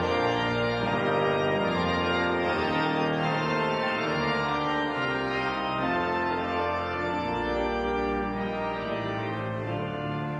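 Music: an organ playing slow, sustained chords that change every second or two.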